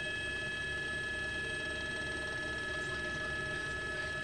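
News helicopter cabin noise: a steady turbine whine of several high tones over a low, fast, even rotor beat.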